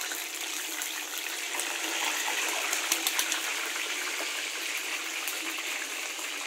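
Chicken pieces deep-frying in hot oil in a wok: a steady sizzle with small scattered crackles.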